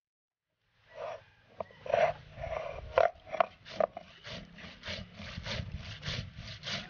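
Whole cumin seeds being crushed on a flat stone grinding slab with a cylindrical stone roller. It starts about a second in with a few uneven strokes, then settles into steady rubbing back and forth at about three strokes a second.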